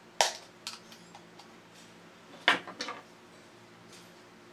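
Small parts of a tin toy robot being handled: a sharp click a moment in and another louder clack about two and a half seconds in, each followed by a couple of lighter ticks.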